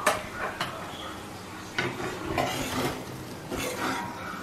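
Flat metal spatula stirring and scraping a potato and green pea samosa filling around a kadhai, with irregular clinks and scrapes of metal against the pan.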